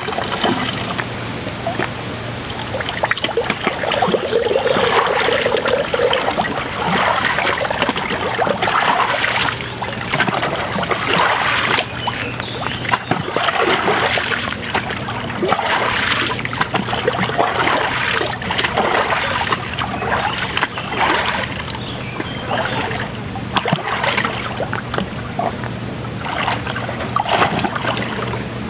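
Rubber boots kicking and splashing in a shallow flowing stream: repeated splashes every second or two over steadily running water.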